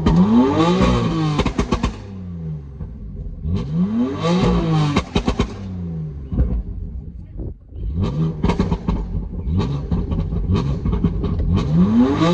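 BMW M3 F80's S55 twin-turbo straight-six with an equal-length exhaust, revved about four times, the engine note rising and falling each time. The exhaust pops and crackles as the revs drop.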